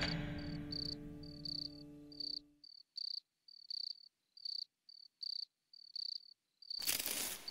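Crickets chirping in short, regular high pulses, a few a second, as night ambience. A held music chord fades out under them over the first couple of seconds, and a loud noisy burst breaks in near the end.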